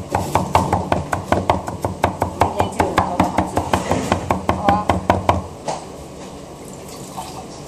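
Cleaver chopping rapidly on a cutting board, mincing food finely at about four to five strokes a second. The chopping stops about five and a half seconds in.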